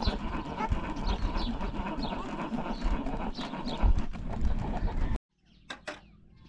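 Outdoor farmyard ambience: repeated short, high, falling chirps over a steady low rumble of wind on the microphone. About five seconds in, it cuts to near quiet, with a few light clicks from a plastic hand-pull vegetable chopper being handled.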